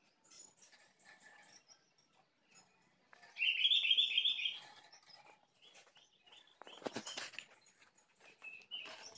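A bird chirping: a loud burst of rapid, high chirps about three seconds in, lasting over a second, with fainter chirps before and after. A brief knock about seven seconds in.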